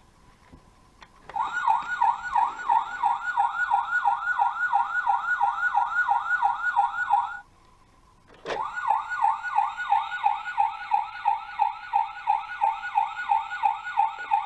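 Electronic siren sound effect from a Dickie Toys toy fire engine's small built-in speaker: a fast yelp repeating three or four times a second. It plays for about six seconds, stops, and starts again after a click a second later.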